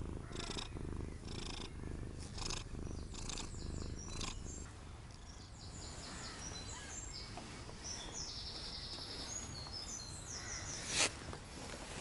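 Siamese cat purring close to the microphone, a steady low purr swelling with each breath, strongest for the first four seconds or so. A brief sharp noise near the end.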